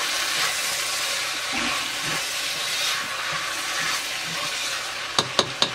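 Onion, tomato and spice masala sizzling steadily in a hot pan. Near the end a few sharp knocks of the spoon against the pan as it is stirred.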